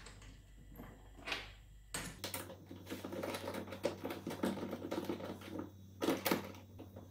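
Small metal vise parts being handled and an Allen key turning a screw in the aluminium vise head: quiet clattering and tapping, with a few sharper clicks, two close together about six seconds in.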